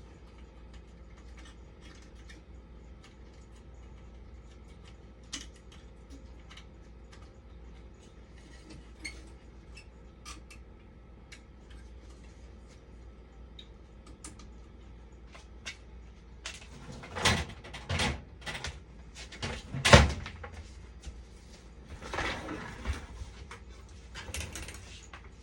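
Light scattered clicks of parts and tools being handled during repair work on an opened dialysis machine, then, from about two-thirds of the way in, a run of louder knocks and clatter, the loudest one about twenty seconds in. A faint low hum runs underneath.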